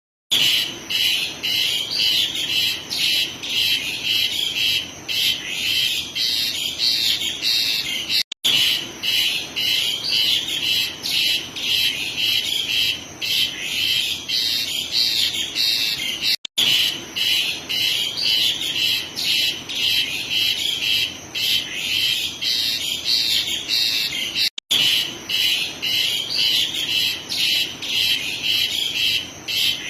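Asian pied starling (jalak suren) singing a loud, nonstop stream of rapid repeated notes. The song cuts out briefly three times, about every eight seconds.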